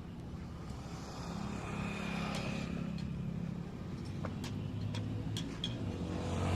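A vehicle engine running steadily and growing louder near the end, with scattered sharp clicks over it.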